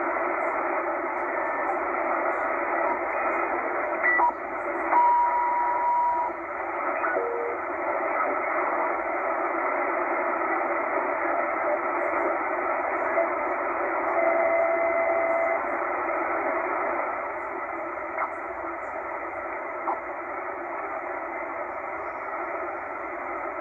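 Shortwave receiver static from a Tecsun H-501X in upper sideband mode, tuned step by step up through the 13 MHz utility band: a steady hiss with no clear signal. Brief steady whistle tones from carriers break through about five seconds in and again around fourteen seconds in.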